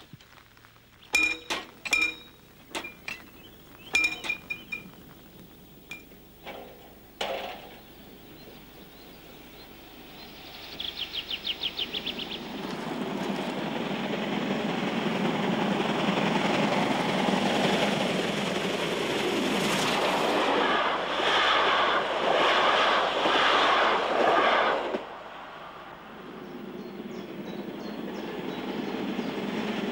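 Metallic clinks and rattles in the first seconds, a brief rapid ringing about a third of the way in, then a steam train growing louder and passing with rhythmic wheel beats. After a sudden drop near the end, DB steam locomotive 042 271 is heard approaching again, building steadily.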